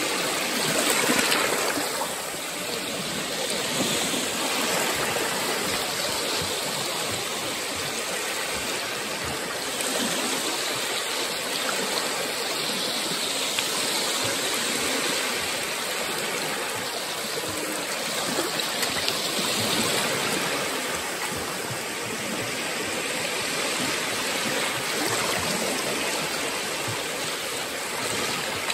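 Small Baltic Sea waves lapping and washing over sandy shallows at the shoreline: a steady rushing hiss of water that swells gently every few seconds as each low wave breaks.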